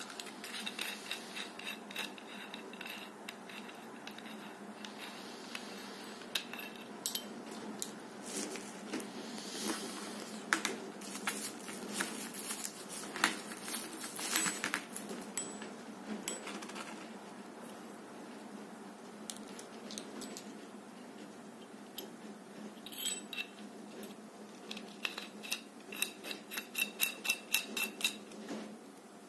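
Metal clinks and clicks from a steel telescopic baton being handled: its threaded end cap is unscrewed and a pointed metal tip is fitted, with plastic and foil wrapping crinkling. There is a quick even run of clicks near the end.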